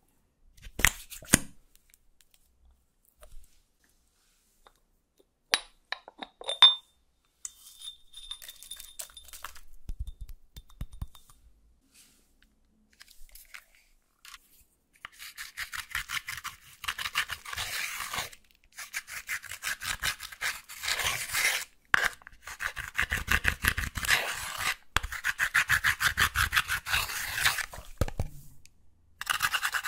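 Pressed highlighter powder scraped and dug out of a plastic makeup palette with a pointed tool: a fast run of rasping strokes with short pauses that starts about halfway through. It is preceded by a few sharp plastic clicks and taps.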